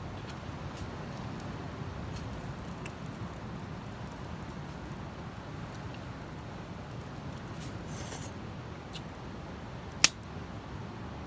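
Campfire burning with scattered crackles and small pops over a steady low rushing, a brief hiss about eight seconds in, and one loud sharp pop about ten seconds in.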